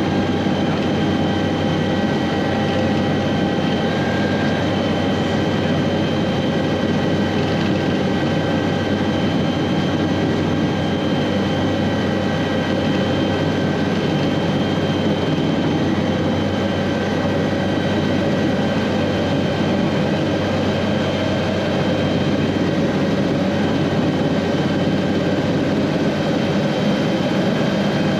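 Aérospatiale SA315B Lama helicopter in forward flight, heard from inside the cockpit. Its Turbomeca Artouste turboshaft gives a steady high whine over the low, steady noise of the rotor and transmission.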